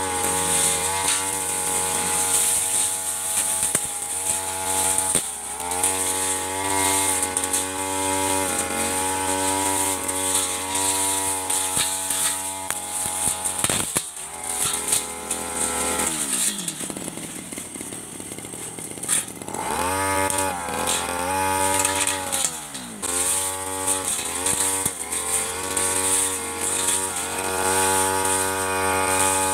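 Stihl 3001 backpack brush cutter's two-stroke engine running at high revs, its pitch dipping again and again as the blade bites into thick grass. A little past halfway it drops to idle for about three seconds, then revs back up and carries on cutting.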